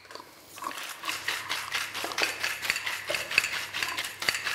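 Hand-twisted salt mill grinding salt in a fast, gritty run of clicks, starting about a second in.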